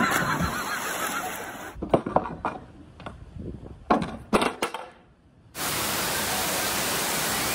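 Water splashing after a dive into a pool. Then a kick scooter clatters on concrete, with a few sharp knocks, one about two seconds in and a cluster around four seconds. After a brief hush, a steady hiss of falling water starts near the end.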